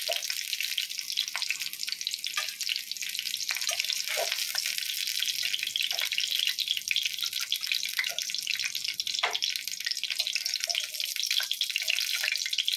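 Hot oil sizzling in a steel kadhai as fried cauliflower florets are lifted out with a perforated slotted spoon: a steady hiss with a fine crackle, and scattered short pops and light scrapes.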